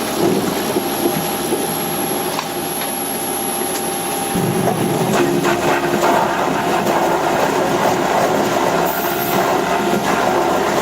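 Industrial processing machinery running with a steady mechanical hum and clatter. The sound changes abruptly about four seconds in.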